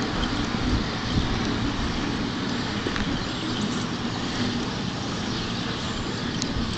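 Stroked 350 small-block Chevy V8 (about 385 cubic inches) in a 1968 Camaro idling with a rough, uneven lope, the choppy idle typical of a long-duration Comp 284 camshaft.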